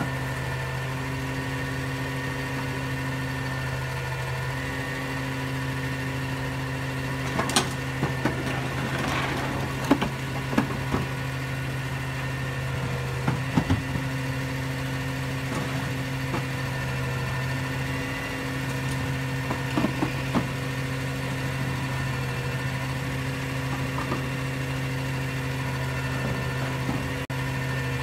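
Refuse truck engine idling steadily, with a few short sharp knocks and clatters at irregular moments.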